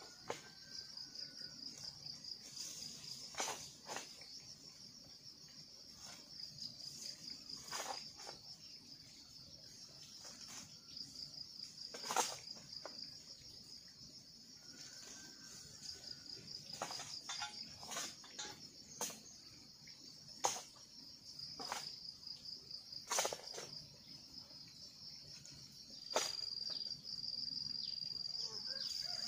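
A steady pulsing insect chorus, with irregular sharp thuds of a hoe chopping into soil every second or few. About three-quarters through, the insect sound turns steadier and louder.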